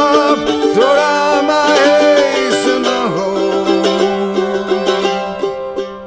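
Background music: an acoustic song played on plucked string instruments with a steady rhythm.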